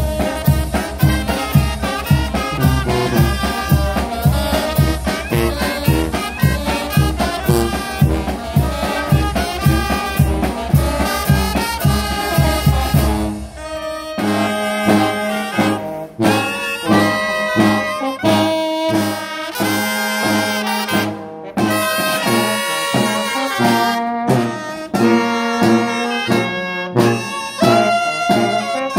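Traditional Oaxacan brass band playing, with trombones, trumpets and saxophones over a steady low beat. About halfway through the low beat drops out and the horns play on in clearer held notes.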